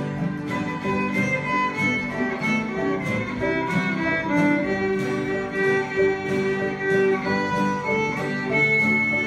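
Acoustic bluegrass band playing an instrumental break: a fiddle carries the melody over a steady rhythm of strummed guitars and other plucked strings.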